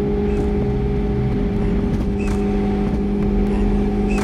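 Car engine idling at a steady, unchanging pitch.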